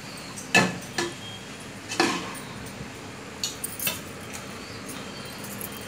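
Perforated metal spatula stirring cauliflower in a metal pot, clinking and scraping against the pot's side in a handful of sharp knocks, the loudest near the start and about two seconds in. A steady low hiss lies under it.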